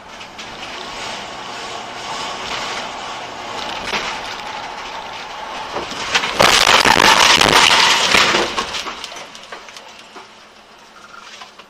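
Car running on the road, then about six seconds in a collision with a car crossing in front: a loud crash noise of about two seconds that then dies away.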